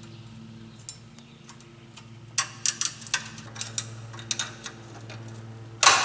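Metal tool clicking and scraping against a drum-style parking-brake shoe spring: a run of sharp metallic clicks, then near the end one loud metallic clank with a ringing tail as the strong spring lets go.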